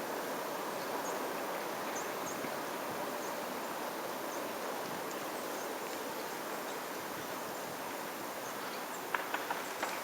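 Steady rush of the flooded Wisconsin River running high and fast, with faint high chirps scattered through and a few light clicks near the end.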